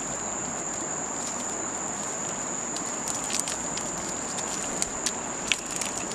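Steady outdoor background hiss with a continuous high-pitched whine, and scattered sharp clicks and pops from about three seconds in.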